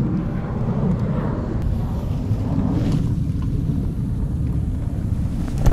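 Wind buffeting the microphone, a steady low rumble, with one sharp click near the end.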